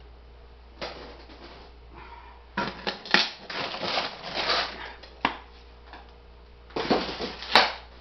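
Frozen food packages being lifted out of a chest freezer and packed into a cooler: plastic wrapping rustling and hard frozen items clunking and knocking, in several short bursts with a sharp knock near the end.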